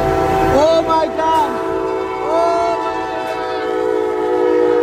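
Passenger train's horn sounding one long, loud, steady chord as it bears down on a level crossing, warning a car hauler stuck on the tracks. A few short rising-and-falling squeals sound over it in the first half.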